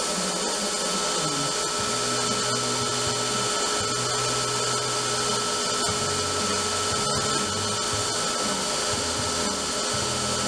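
Bader B-III belt grinder running steadily, sanding a stack of thin stainless steel plates, an even hiss of abrasive on metal over a constant motor hum.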